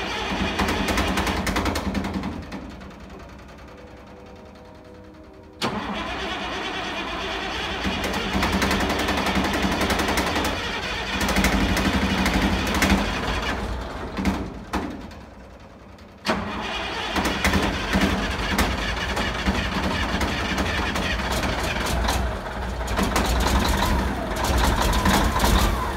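Caterpillar 3406A inline-six diesel in a 1979 Peterbilt 359 being started after sitting ten years: it runs, winds down and dies about two seconds in, then starts again with a sudden jump near six seconds. It falters and dies once more partway through and starts again with another sudden jump, running on to the end.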